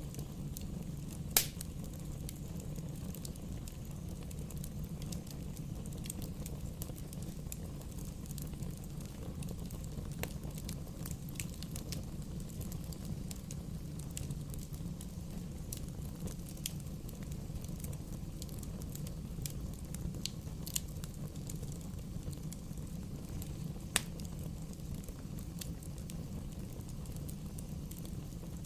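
Bonfire burning: a steady low rumble with scattered pops and snaps from the burning wood, two of them sharp and loud, about a second in and near the end.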